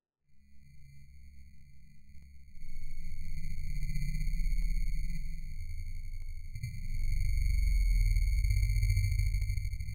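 A steady, high electronic tone with overtones over a low, muffled rumble. Both start abruptly, and the rumble grows louder about two and a half seconds in.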